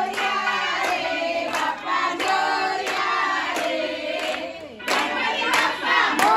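A group of women and children singing together while clapping in time, about two claps a second.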